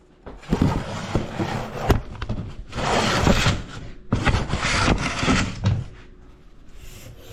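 Handling noise from fishing line being grabbed and worked by gloved hands: rustling and scraping in three stretches, with several sharp knocks, quieter near the end.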